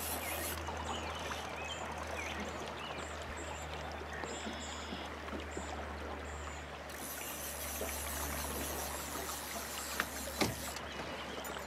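River water flowing and lapping, with a steady low rumble beneath it and two short knocks near the end.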